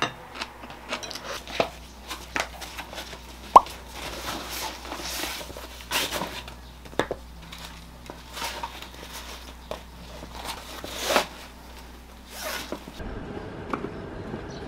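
Small handling sounds indoors: scattered clicks and taps, one sharp clink about three and a half seconds in, then fabric rustling as a canvas backpack is handled. Near the end this gives way to a steady low outdoor background.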